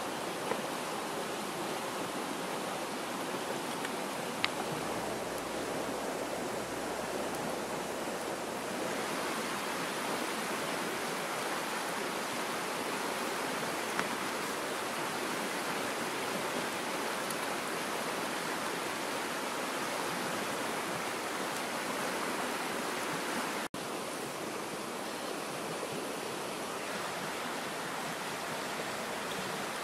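Octopus and mushroom curry simmering in a pan over a fire: a steady hissing and bubbling, with a few faint clicks.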